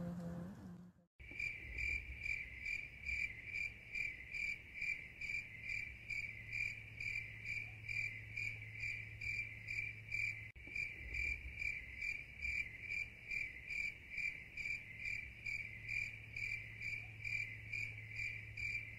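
A cricket chirping steadily in an even rhythm of about three chirps a second, starting suddenly about a second in after a brief silence, over a faint low hum.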